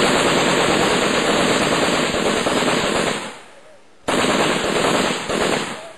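Sustained automatic fire from belt-fed 7.62 mm NATO machine guns: a long burst of about three seconds stops, and after a pause of about a second a second long burst follows, then a short one at the end.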